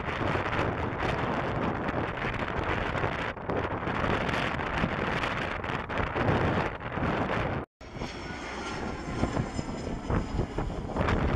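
Boeing 757 jet engines during a landing, heavily buffeted by wind on the microphone. After a sudden cut about two-thirds of the way in, another 757 on approach gives a steady high engine whine of several tones.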